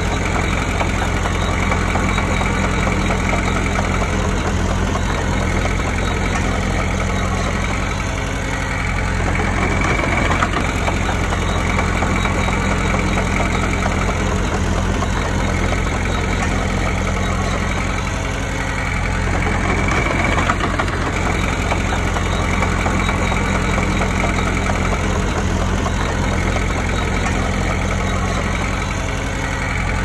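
Komatsu D20P crawler bulldozer's diesel engine running steadily, easing off and swelling again about every ten seconds.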